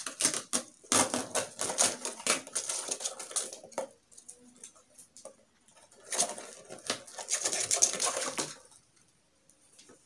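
Packing tape being peeled off a cardboard box, giving rapid crackling and tearing. This comes in two spells: one for the first four seconds or so, and another from about six seconds in to a little past eight.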